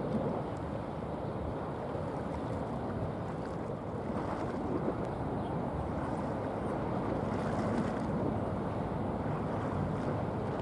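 Steady low rumble and water wash of the bulk carrier Star Kilimanjaro passing close by, mixed with wind on the microphone.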